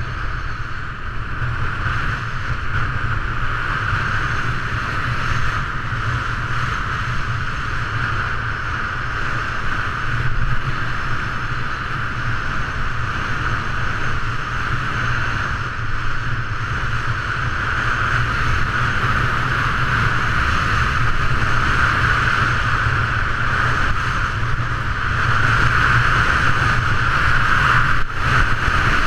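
Steady rush of wind over a GoPro camera's microphone while skiing downhill, mixed with the hiss of skis running on packed snow, growing louder toward the end as speed builds.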